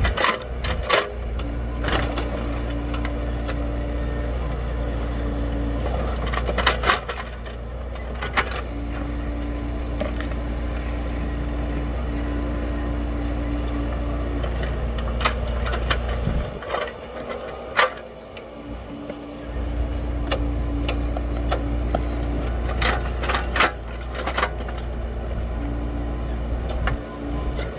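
Hitachi EX30UR mini excavator's diesel engine running under load, with a steady hydraulic whine that comes and goes as the arm works, while the bucket digs around a tree stump to cut its roots. Sharp knocks come in several clusters as the bucket strikes soil and roots. The engine note drops briefly a little past the middle.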